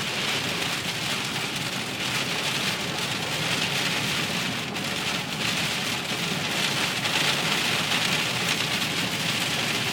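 Hard rain pelting a car steadily, a dense even patter.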